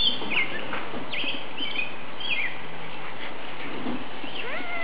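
Small songbirds chirping: many short, high chirps, several falling in pitch, over a steady outdoor background hiss, with a lower rising call near the end.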